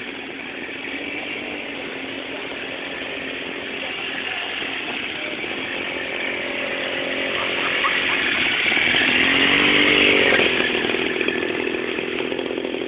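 A small engine running, growing louder to a peak about ten seconds in, its pitch dipping and rising there, then easing off.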